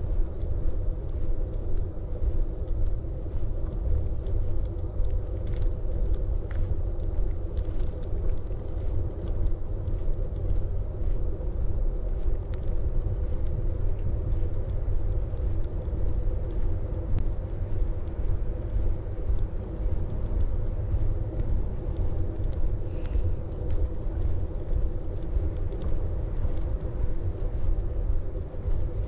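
Wind buffeting a small action-camera microphone, heard as a steady, unsettled low rumble, with a faint steady hum underneath and a few light ticks.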